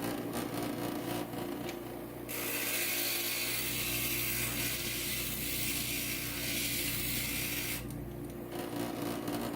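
Inland stained glass grinder running, with a piece of glass pressed against the spinning grinding bit for about five seconds in the middle, a high grinding hiss, to take a small lump off the glass's edge. Light ticking of glass against the bit before and after the grind.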